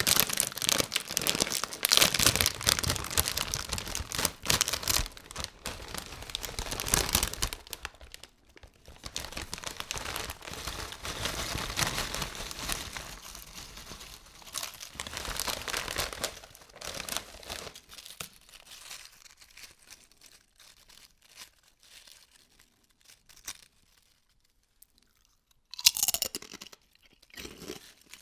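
Crinkling of a plastic potato-chip bag being handled and tipped, with chips sliding and rattling out of it into a hand. The rustling dies down to scattered small crackles in the second half, with one short, loud crackle near the end.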